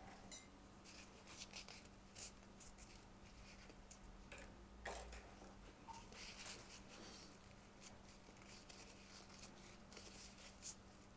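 Faint rubbing and scattered small clicks of paintbrushes being wiped clean in a tissue and dabbed on small canvases, with a light knock about five seconds in. A faint steady hum lies underneath.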